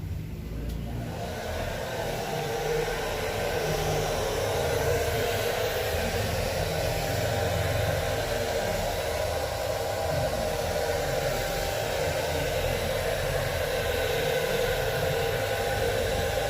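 A small electric motor whirs steadily after switching on about a second in, with a constant blower-like hum.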